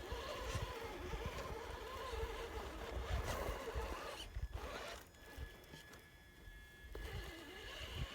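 Traxxas TRX-4 Sport RC crawler's electric motor whining with a wavering pitch as it drives through mud, with the sound of the tyres churning. The sound eases off around the middle and picks up again near the end.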